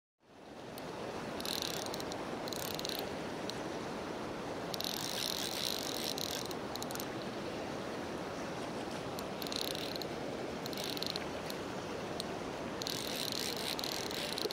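Steady rush of river current, with several bursts of rapid high clicking from a fly reel's ratchet as line runs on and off the reel.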